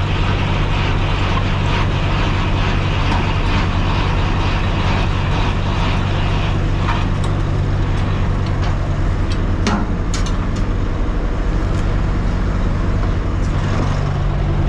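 Semi-truck's diesel engine running steadily at low revs, with a few sharp knocks about ten seconds in.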